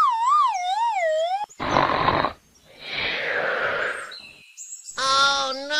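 Cartoon sound effects: a wavering whistle-like tone that wobbles down in pitch, the usual 'dizzy' effect, then two short noisy whooshes, a brief high tone, and a pitched, voice-like sound near the end.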